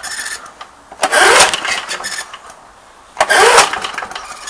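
A 1982 Briggs & Stratton lawnmower engine is pulled over twice on its recoil starter, about two seconds apart. Each pull is a short whir that rises in pitch as the engine cranks, and it does not fire. The engine won't start; the owner suspects a blown head gasket or lost spark.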